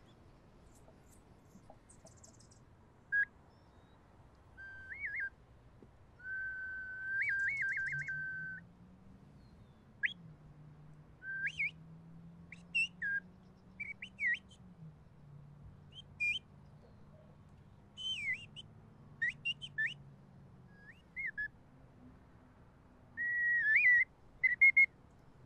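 Hand whistle: a person blowing through cupped hands, giving a string of short whistled notes, slides and warbling trills in a bird-call style.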